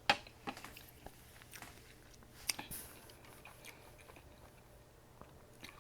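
A person chewing and biting food close to the microphone, with scattered sharp mouth clicks and crunches; the loudest comes just after the start.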